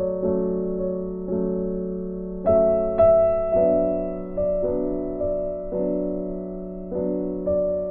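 Slow, gentle piano music: chords struck about once a second, each one fading away before the next.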